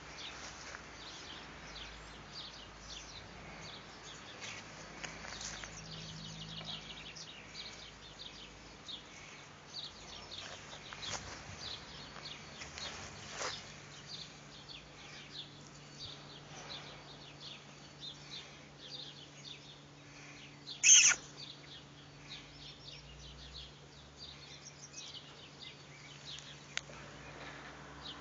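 Small birds chirping in the background, many short high chirps scattered throughout, with one much louder, sharp, short sound about three-quarters of the way through. A faint steady low hum lies underneath.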